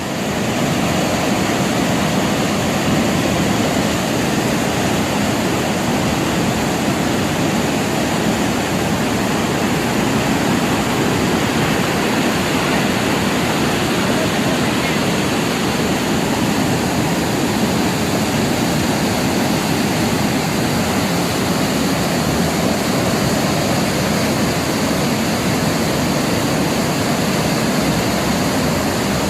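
Haew Narok waterfall, a large multi-tier waterfall, pouring down in a steady, loud rush of falling water.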